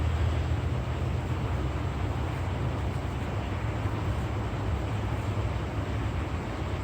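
A steady low hum under an even hiss of background noise, with no distinct strokes or knocks.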